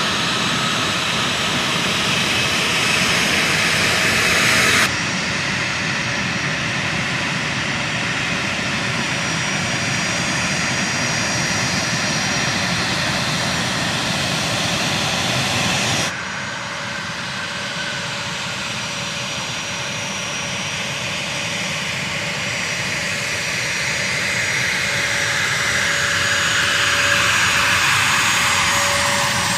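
A-10 Thunderbolt II jets' twin TF34 turbofan engines running at taxi power: a steady jet whine over a rushing roar. The sound changes abruptly twice, about five and sixteen seconds in, and grows louder toward the end as an aircraft comes close.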